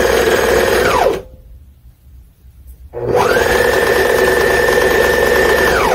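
Janome 654DE serger stitching a stretched rib-knit neckband onto a knit garment. It runs steadily, winds down and stops about a second in, then starts up again about two seconds later with a rising whine as the motor comes up to speed. It runs at a steady speed until it winds down and stops near the end.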